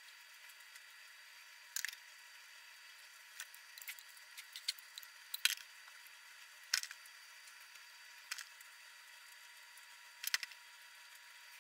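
Wet paper pulp pressed and patted into place by hand on a plastic grid: a dozen or so brief wet dabs, unevenly spaced and bunched together in the middle.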